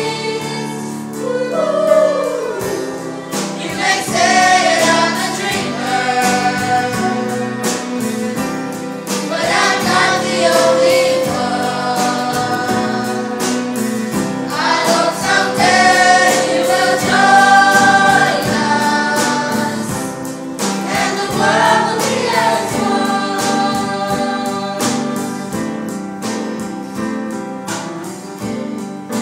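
Teenage choir of mostly girls singing a song together, with instrumental backing.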